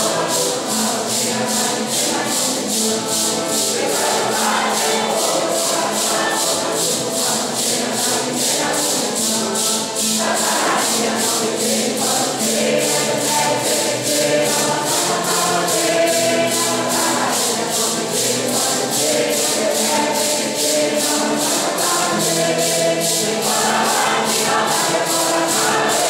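A Santo Daime congregation of men and women singing a hymn together, with maracas shaken in a steady beat throughout.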